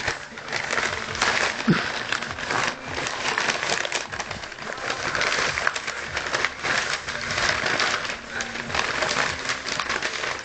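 Newspaper pages rustling and crinkling as a baby grabs and scrunches them, on and off.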